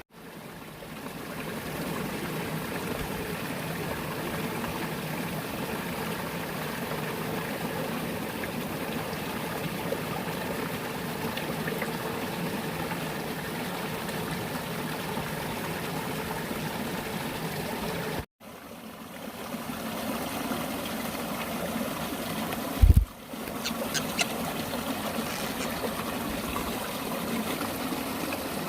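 Water running and trickling steadily. Near the end comes a single loud low thump.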